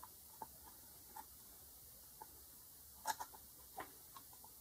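Near silence with faint, irregularly spaced small clicks and ticks, a few close together about three seconds in, as a soldering iron heats a capacitor's solder joint on a circuit board and the part is pressed to free its leg.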